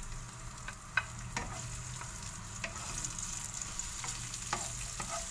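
Spicy chorizo and onions sizzling in a frying pan while a wooden spatula stirs them, with a few light knocks of the spatula against the pan.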